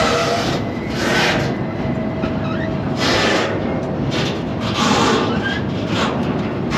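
Freight car heard from on board, rolling over the rails: a loud steady rumble and clatter that swells and eases irregularly, with faint thin squeals now and then.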